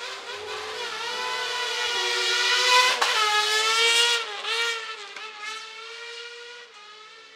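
Car cross (speedcar) racing buggy accelerating hard up the hill. Its engine note climbs to a peak about three seconds in, drops and climbs again on a couple of upshifts, then fades as it pulls away.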